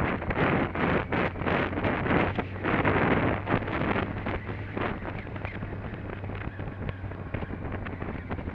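Wind buffeting the microphone of a camera on a moving motorcycle, in uneven gusts, over the motorcycle engine's steady low hum. The gusts ease somewhat about halfway through.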